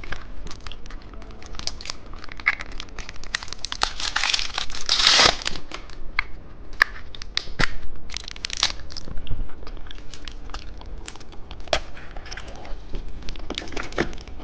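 Plastic candy packaging crinkling and being torn open, with scattered sharp clicks and a denser burst of rustling about four to five seconds in.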